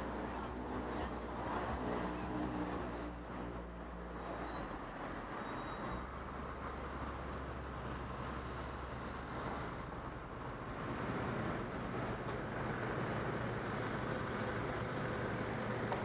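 Street traffic at a city intersection: car engines running and cars driving across, with a pitched engine hum in the first few seconds.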